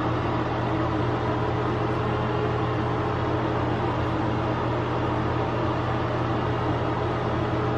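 A steady mechanical room hum: a low drone with a fainter higher tone over an even hiss.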